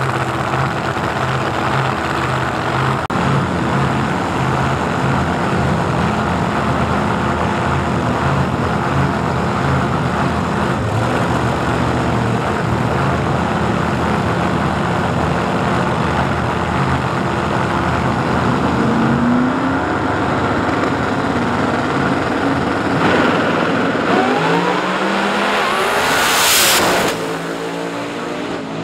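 Pro 275 drag race cars idling unevenly and blipping their throttles after a burnout and while staging. Near the end the cars launch and accelerate hard, engine pitch climbing steeply, and a loud peak comes as they tear past before the sound falls away down the track.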